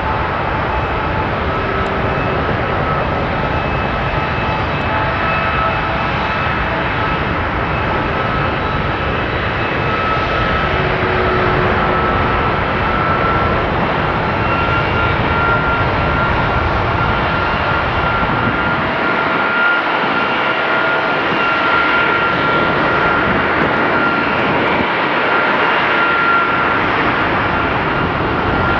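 Boeing 757-200 freighter's jet engine running on the ground during an engine test: a steady roar with a high whine on top that creeps slightly higher in pitch over the middle of the stretch.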